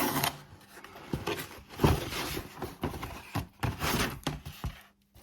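Parcel packaging being opened and handled by hand: irregular rustling and scraping with several light knocks.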